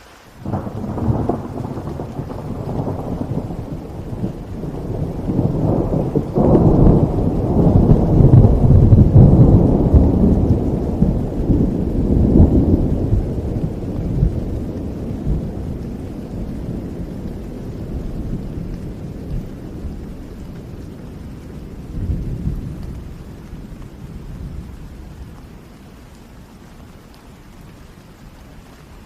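A long rolling peal of thunder over steady rain: a low rumble breaks in suddenly right at the start, builds to its loudest about a third of the way through, swells once more later on and slowly dies away into the rain.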